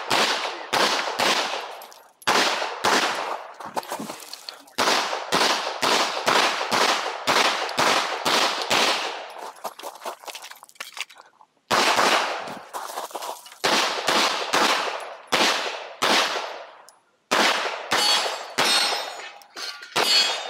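Glock 43X 9mm pistol fired in fast strings of shots, mostly in quick pairs, with short breaks between strings and the longest break a little past halfway.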